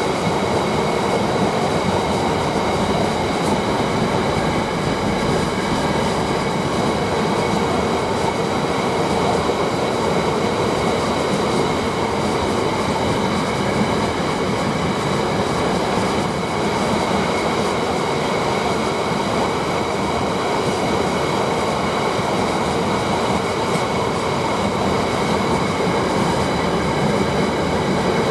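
A long freight train's wagons rolling steadily past at close range, with the clatter of the wheels on the track and a steady high-pitched ring from the wheels.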